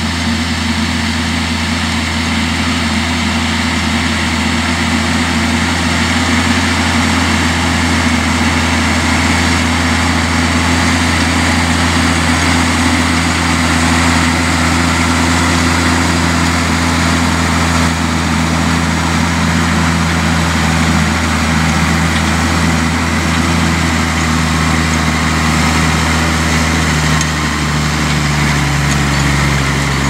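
Tractor engine running steadily under load as it pulls a crumbler cultivator through ploughed soil, a constant low drone with noise from the working implement over it. The engine note shifts slightly near the end.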